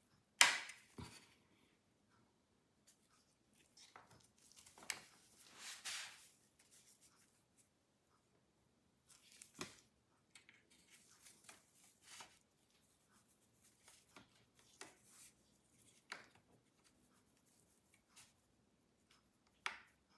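Faint plastic pry pick scraping along a laptop's case seam, with the bottom panel's plastic clips clicking as they pop free. A sharp click comes just under half a second in, a longer scrape around four to six seconds, and scattered light clicks after that.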